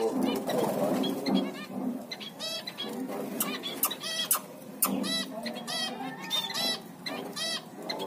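Zebra finches calling: about a dozen short, nasal calls, often in quick pairs, from about two seconds in. A lower, rougher sound of other birds runs underneath, strongest in the first two seconds.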